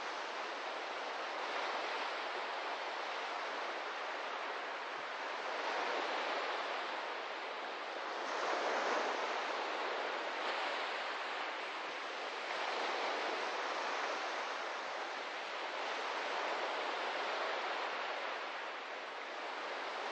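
Small ocean waves washing in on a sandy beach: a steady hiss of surf that swells and eases every three to four seconds.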